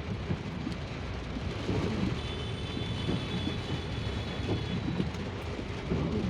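Car driving through heavy rain: a steady low rumble of road and engine noise with uneven swells.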